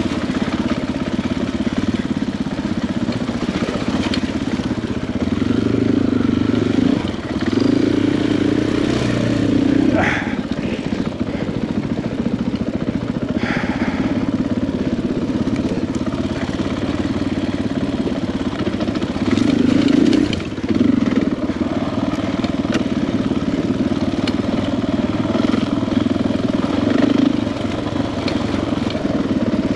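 KTM 500 EXC-F's single-cylinder four-stroke engine running with the throttle opening and closing, the engine note swelling louder around six to ten seconds in and again around twenty seconds in.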